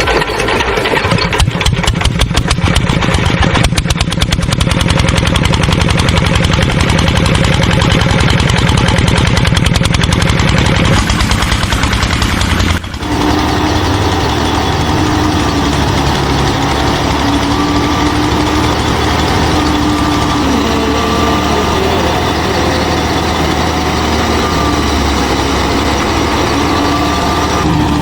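Small engine running with a rapid, even chugging beat. About 13 seconds in it cuts abruptly to a steadier run with a faint whine over it.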